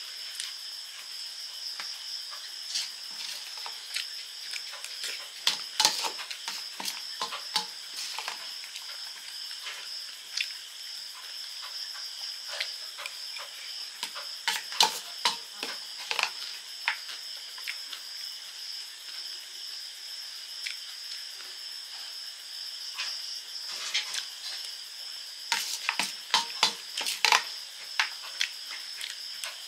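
Crisp crackling and crunching of puffed rice and fried fritters being chewed and mixed in a steel bowl, with short clicks and scrapes of a spoon and fingers against the metal, in irregular clusters. A steady high-pitched whine runs underneath.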